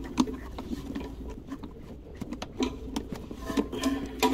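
Scattered light clicks and taps of pliers and hands working the plastic Flushmate pressure-assist cartridge, unscrewing it counterclockwise from the pressure vessel.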